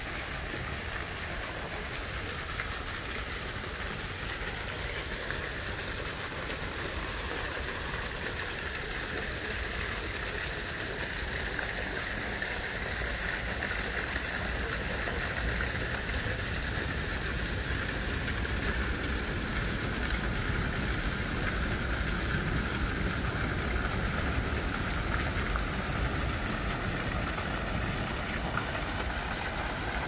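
Steady rushing of water flowing through a shallow, rocky garden stream, with a low rumble underneath, growing a little louder from about halfway through.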